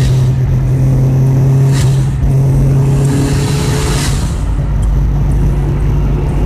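Car engine under way at speed, a loud steady drone holding one pitch, with brief whooshes about two and four seconds in.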